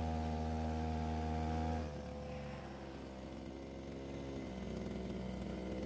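Small outboard motor on a coracle running steadily, then throttled down about two seconds in to a lower, quieter pitch, picking up a little again near the end.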